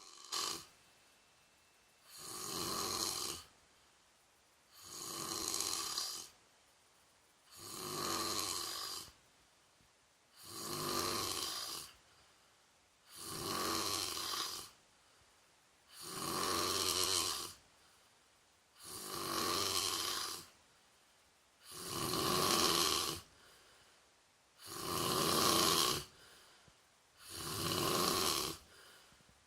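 A person snoring, one snore roughly every three seconds, each lasting about a second and a half, with quiet gaps between.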